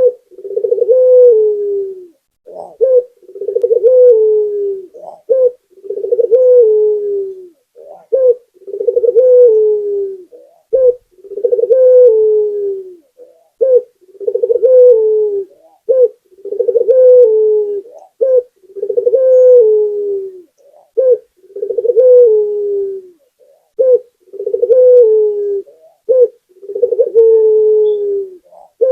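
Local puter dove (domestic ringneck dove) cooing steadily: a rolling coo about every two seconds, each a short note followed by a longer one that falls slightly in pitch.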